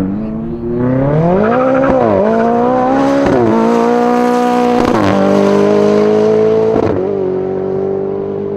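Ferrari 488 GTB's twin-turbo V8 through a Capristo aftermarket exhaust, accelerating at full throttle past the listener and pulling away. The loud rising engine note is broken by several quick upshifts.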